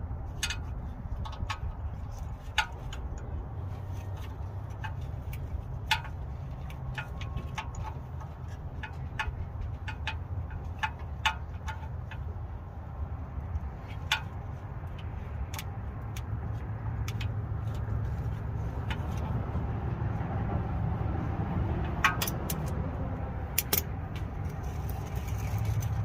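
Scattered, irregular sharp metallic clicks and taps of tools and parts being handled as the oil pickup tube is worked into place under a GM 5.3 V8, over a steady low rumble.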